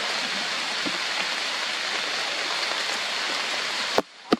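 Steady heavy rain falling on forest foliage, an even hiss. It cuts off abruptly near the end, with two sharp clicks.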